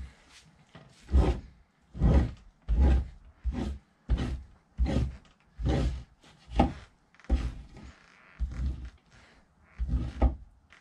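Fleshing knife drawn in repeated scraping strokes over a raccoon hide on a wooden fleshing beam, about one stroke every three-quarters of a second, as the last fat is cleaned off the pelt.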